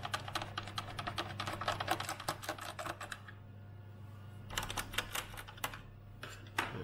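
Screwdriver backing screws out of the plastic underside of a Commodore 128D case: a rapid run of light clicks and scrapes for about three seconds, a short pause, then more clicks, over a steady low hum.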